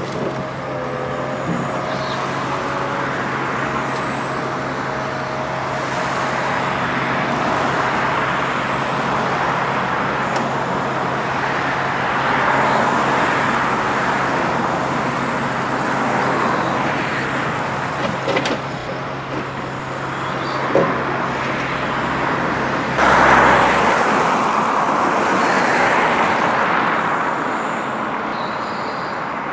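A log truck's loader crane working logs onto the trailer. The truck's diesel engine runs steadily while the crane's hydraulics swell and ease with each boom movement. There are a few knocks of logs, and one loud swell about three-quarters of the way through.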